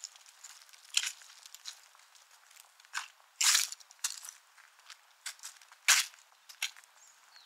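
Footsteps crunching at an irregular pace, with a longer crunch about three and a half seconds in and a sharp one near six seconds.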